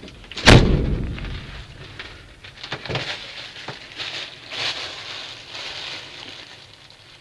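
A door shutting with a single heavy thump about half a second in, followed by a few faint knocks and rustling.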